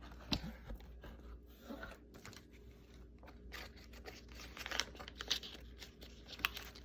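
Quiet handling noises: scattered sharp clicks and taps with soft rustling and crinkling between them, the sharpest click about a third of a second in.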